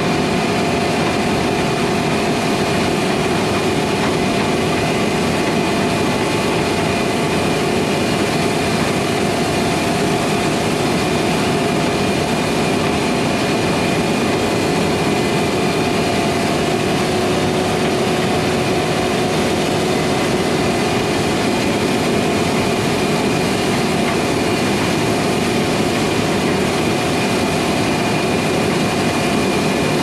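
A steady, unchanging engine drone: a constant rushing noise with a few held tones running through it.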